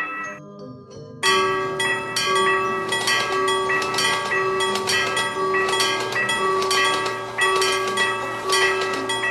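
Railroad crossing warning bell ringing in quick repeated strikes, starting about a second in, with a steady tone pulsing on and off about once a second underneath.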